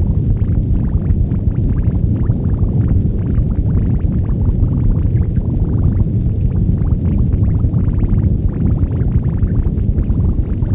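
Noise music made with guitar, voice, metals, tapes and electronics: a loud, dense, steady low rumble with a constant crackle over it.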